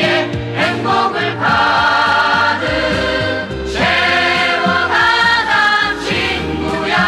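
Music: a Yanbian trot song, with several voices singing together over the accompaniment.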